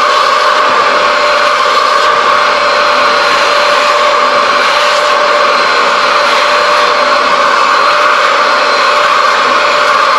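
Vacuum motor running steadily, a constant whine over a rushing hiss without a break.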